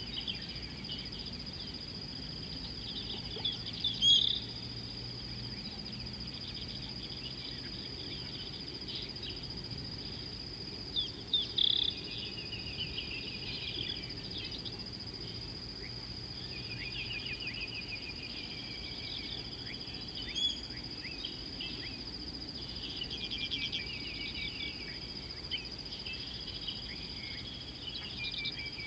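A steady, high-pitched insect trill runs unbroken, while small birds chirp and twitter in several short bursts over it, the loudest about four seconds in and again near twelve seconds.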